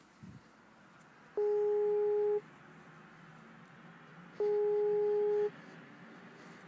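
Telephone ringback tone on the line: a steady mid-pitched tone about a second long, twice, about three seconds apart, as the dialled call rings before it is answered.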